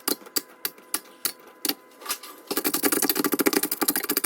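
A utensil clicking against a dish as eggs are mixed for scrambling: even taps about three a second, then a fast, dense clatter for the last couple of seconds.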